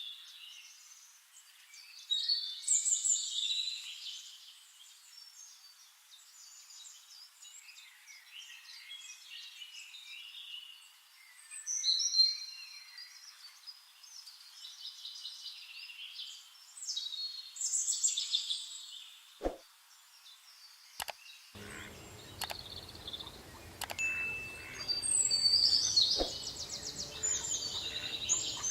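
Birds chirping and peeping in many short, high calls, some in quick runs, rising and falling in loudness throughout. A little past two thirds of the way in, a steady background noise comes in under the calls.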